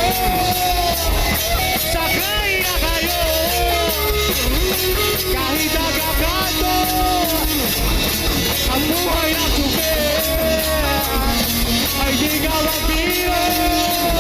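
Live rock band playing loud, with a heavy steady low end and a melodic lead line that bends and slides in pitch.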